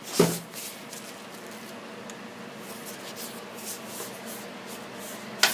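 Faint handling noises in a small room: a knock just after the start, then soft rubbing and rustling over a low steady hum, and a sharp click near the end.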